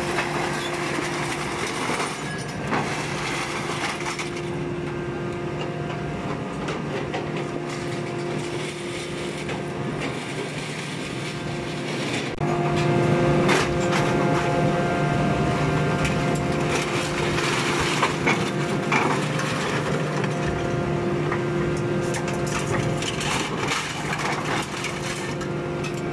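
Kobelco excavator engine and hydraulics humming steadily while scrap metal clatters and crashes as its grab loads scrap into a hydraulic baling press. About twelve seconds in, the machinery grows louder as it works harder.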